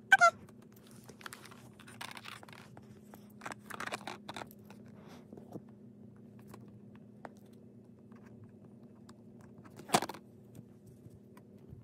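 Scattered scratching, scraping and rustling of small objects being handled, with one sharp knock about ten seconds in, over a faint steady low hum.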